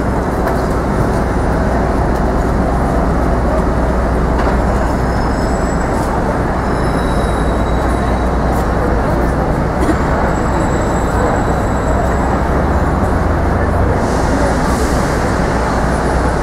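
Steady, loud city street din: traffic noise with a deep low hum underneath, unchanging throughout.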